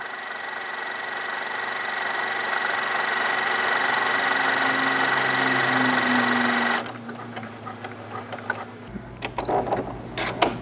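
Janome 4120 computerized sewing machine stitching out a programmed combination of decorative stitches and lettering. It runs steadily for about seven seconds, then stops suddenly, followed by a few light clicks near the end.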